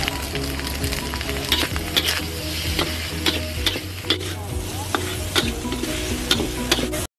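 Fried rice sizzling in a steel wok while a metal spatula stirs and scrapes it, with sharp clinks of the spatula striking the wok a few times a second. The sound cuts off suddenly near the end.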